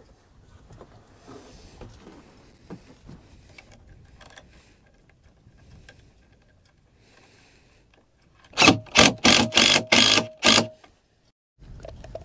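Light metallic handling clatter, then about six hard hammer blows in quick succession with a ringing metallic note. This is typical of threaded bar being hammered through the timber of a boat's beam shelf and frame for temporary bolts. The sound cuts off abruptly.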